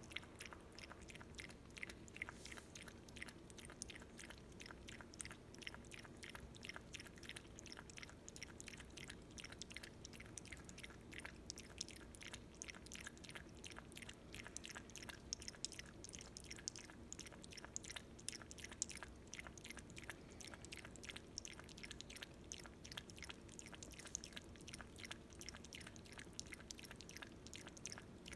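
Chihuahua puppy lapping water from a stainless steel bowl: soft, quick wet laps in a steady rhythm of about four a second.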